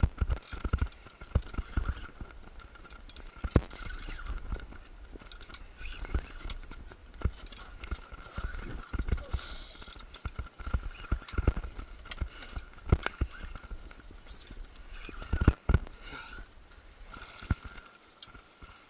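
Fishing reel being cranked to bring in a hooked fish, with irregular clicks and knocks over a low wind rumble on the microphone.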